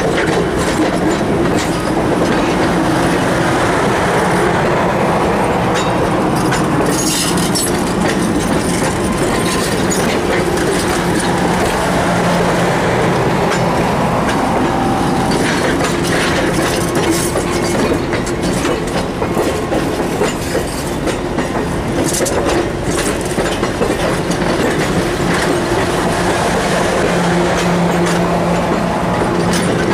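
Passenger railroad cars rolling slowly past: steel wheels on rail in a steady rumble, with clicks as the trucks cross rail joints and a low steady hum underneath.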